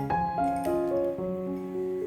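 Background piano music: a slow melody of single sustained notes over a few chords.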